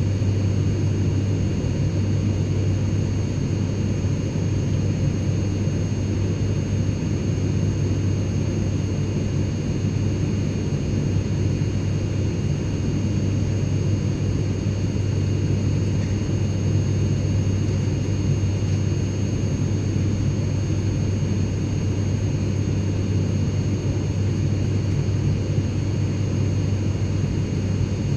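Airliner cabin noise in flight: a steady low rumble and rush of engine and airflow, with faint high steady tones above it, unchanging throughout.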